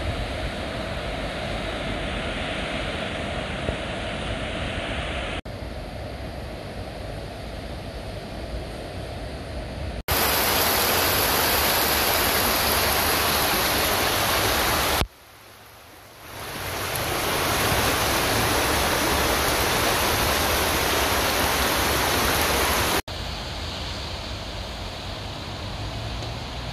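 Heavy rain falling steadily as a dense hiss, in several short clips joined by abrupt cuts. It is louder and brighter from about ten seconds in, with a brief quiet gap in the middle.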